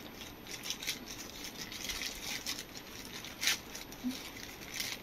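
Plastic courier mailer bag crinkling as it is pulled and torn open by hand, with a louder crackle about three and a half seconds in.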